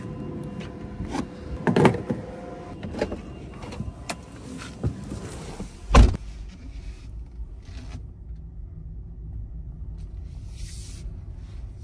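Clicks and clunks of a Tesla Supercharger connector being pulled from a Tesla Model Y's charge port and handled. About six seconds in, a car door shuts with a loud thump, followed by a low steady hum inside the cabin.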